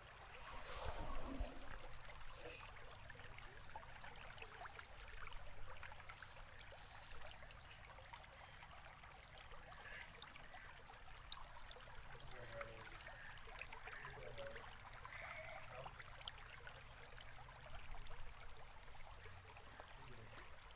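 Faint steady rushing like running water, with a louder scuff or thump about a second in.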